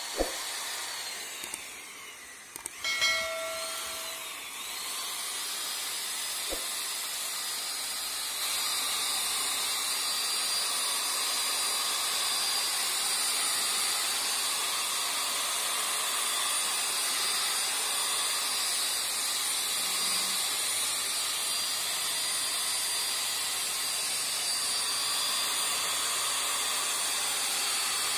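Electric drill spinning a buffing pad against a plastic headlight lens: a steady motor whine over a rubbing hiss that starts suddenly. There are a few brief sharp sounds about three seconds in, and it gets a little louder about eight seconds in.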